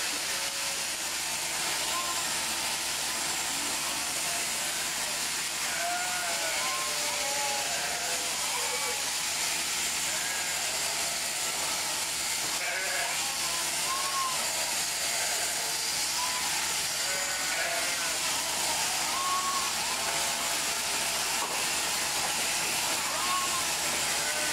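Many merino sheep and lambs bleating, short calls overlapping and scattered through the whole stretch, over a steady hiss.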